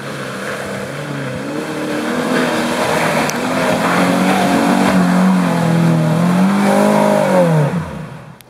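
1999 Subaru Forester's flat-four engine revving hard under load on a muddy climb, with a rear wheel spinning in the mud. The revs rise, hold high and waver for several seconds, then fall away sharply near the end.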